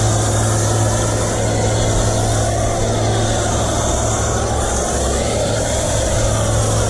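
Pressure washer running with a foam cannon spraying soap foam onto a car's side panels: a steady hiss of spray over a steady low motor hum.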